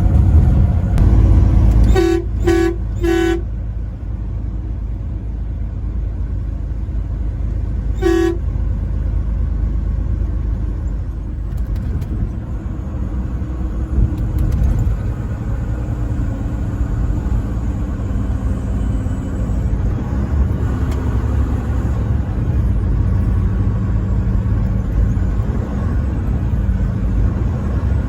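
Truck horn sounding three short blasts in quick succession about two seconds in, then one more short blast about eight seconds in. Under it runs the truck's steady engine and road rumble.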